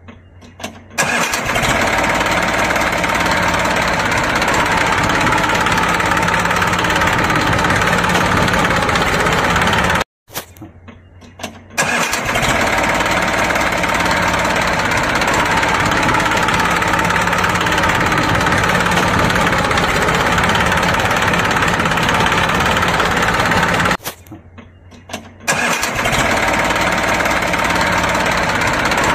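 A tractor engine sound laid over toy tractors that cannot make it: the engine starts and runs steadily, cutting out briefly about ten seconds in and again near the end before starting up once more.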